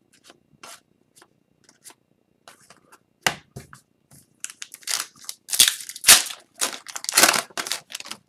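Light clicks and slides of trading cards being handled. About halfway through, loud crinkling and tearing of a hockey card pack's foil wrapper being ripped open.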